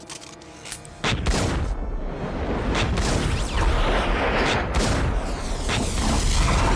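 A film-style barrage of rapid gunfire and booms, breaking in suddenly about a second in and carrying on loud and dense.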